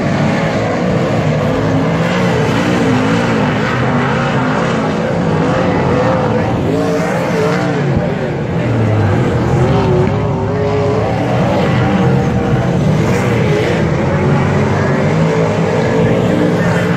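Several speedway super sedans lapping a dirt oval, their engines loud and continuous, pitch rising and falling over and over as they throttle on and off through the turns.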